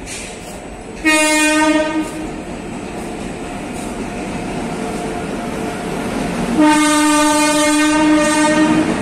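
Horn of an Indian Railways electric locomotive hauling a passenger train into the station, sounded twice: a short blast about a second in and a longer blast of over two seconds near the end. Between the blasts the train's rumble of wheels on rail grows steadily as it draws in.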